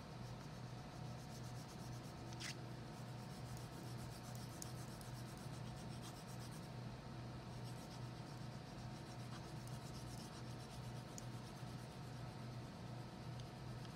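Wax crayon scribbling on drawing paper in rapid back-and-forth shading strokes, a fine continuous scratching, over a low steady hum. A single small click sounds about two and a half seconds in.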